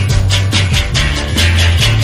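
Brazilian rock song played back: a steady bass line under drums, with quick, even cymbal strokes about four a second.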